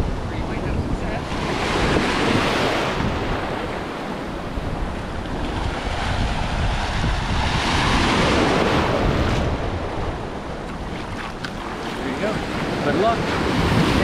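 Small waves breaking and washing over a rocky shore, swelling twice, about two and eight seconds in, with wind buffeting the microphone.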